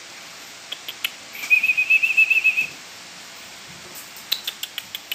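A high, warbling whistled trill of about ten quick pulses at one pitch, lasting just over a second, with a few sharp clicks before and after it.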